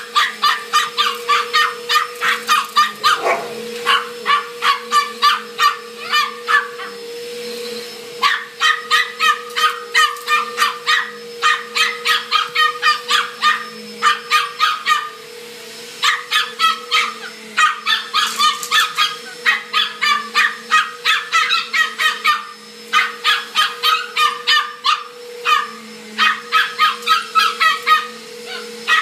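Small dog barking at a vacuum cleaner in rapid runs of high yaps, about three a second, with a few short pauses. Under the barks the vacuum's motor hums steadily.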